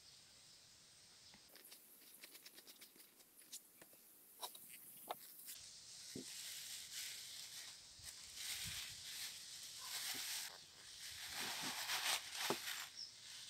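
Plastic bag rustling and crinkling under rubber-gloved hands as it is folded and wrapped shut around rusty steel parts set to soak in acid. Faint light clicks come first, and the crinkling grows louder and denser from about halfway through.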